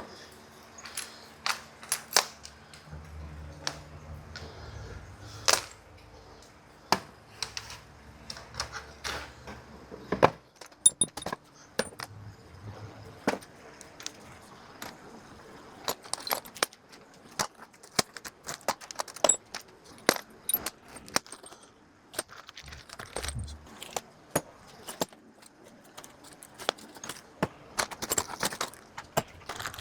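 Small metal objects being handled: irregular sharp clicks and clinks, some with a brief high ring, scattered throughout.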